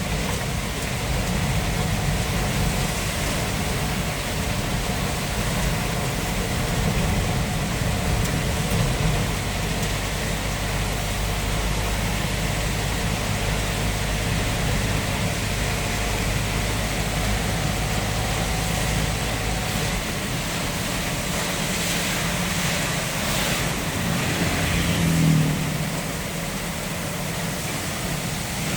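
Light truck driving on a wet road in the rain: a steady engine drone under a hiss of rain and tyre spray. The low engine drone eases about twenty seconds in.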